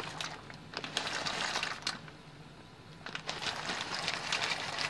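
Dry macaroni pasta pouring into a pot, a rapid rattle of small hard clicks in two spells with a short pause between them.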